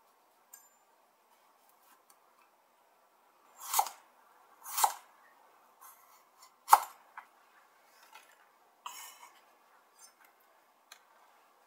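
Kitchen knife cutting through carrot onto a wooden cutting board: three sharp cuts, the first two a second apart and the third two seconds later. Softer scraping and light clicks follow as the carrot pieces are gathered up.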